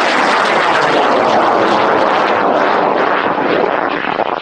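High-power rocket's J145 motor burning in ascent: a loud, steady rushing roar that eases slightly near the end as the rocket climbs away.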